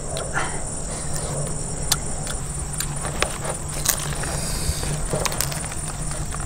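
Scattered sharp clicks and soft tearing as grilled rib bones are pulled apart from the spiced meat by hand. Behind them run a steady high-pitched drone of insects and a low steady hum.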